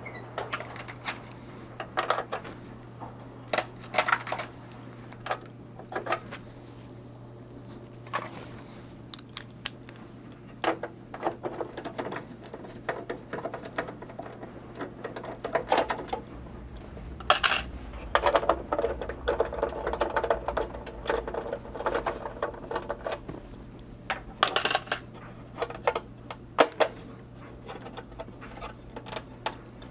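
A screwdriver and small metal parts clicking, scraping and rattling against the sheet-metal chassis of a Tektronix 2440 oscilloscope as parts are unscrewed and taken out, in scattered sharp clicks with a busier stretch of rattling past the middle. A steady low hum runs underneath.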